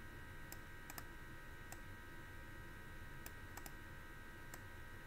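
Faint computer mouse clicks, about eight sharp, irregular clicks, over a steady faint hum.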